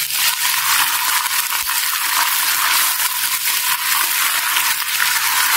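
Ginger-garlic paste sizzling steadily in hot oil with fried onions in a wok, stirred with a wooden spatula.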